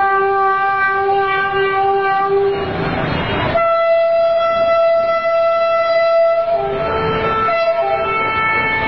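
Diesel locomotive's multi-tone horn sounding long blasts, a warning as the train approaches a level crossing. There is a short break about two and a half seconds in, and the tones shift near the end, with the train's running noise underneath.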